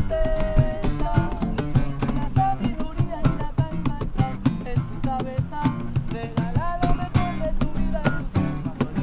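Background music: a plucked acoustic guitar with a steady beat.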